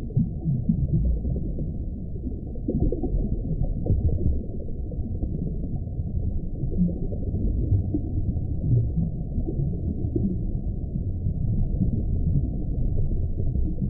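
Experimental electronic soundscape: a deep, murky low rumble with shifting, gliding low tones, muffled with nothing high above it.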